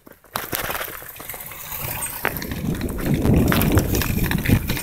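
Wind buffeting and handling rustle on a handheld phone microphone while riding a bicycle, with scattered clicks. The rumble grows louder about halfway through.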